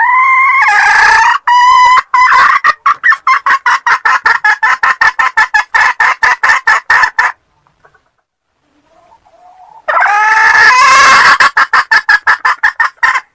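Red junglefowl hen cackling: a rising call breaks into a fast run of clucks lasting about seven seconds. After a short pause a second bout starts about ten seconds in.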